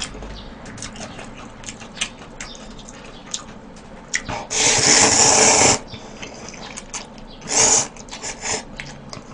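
Instant ramyeon noodles being slurped and chewed: one long, loud slurp lasting over a second about four and a half seconds in, a shorter slurp near eight seconds, and wet chewing and smacking in between.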